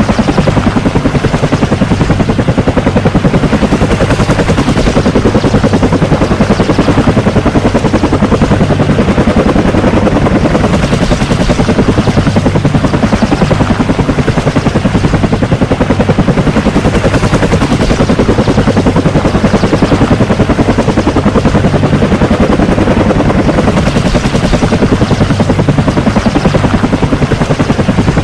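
Bell AH-1 Cobra attack helicopter running steadily, its rotor blades chopping in a fast, even beat over the turbine's rush.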